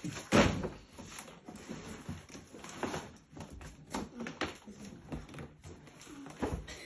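A gift being handled and unpacked: irregular rustles and knocks of packaging, with a sharp thump about half a second in.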